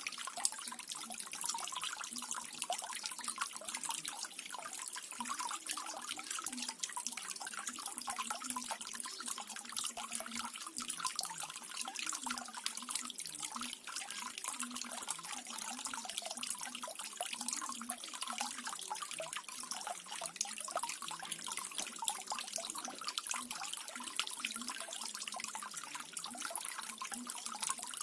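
Water from a small garden waterfall running and splashing steadily, with a dense patter of fine drips.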